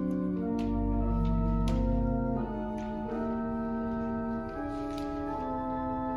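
Church organ playing slow, sustained chords, with deep pedal bass notes entering about half a second in.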